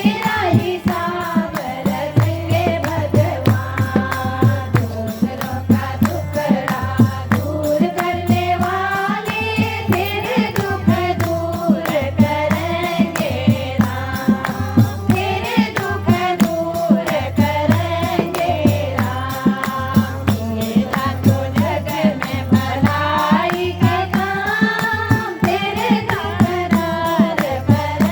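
A woman singing a devotional bhajan, her melody sliding and held on long notes, over a steady, fast drum beat.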